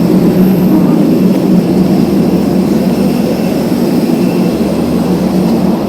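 Jet aircraft running nearby: a loud, steady drone with no breaks.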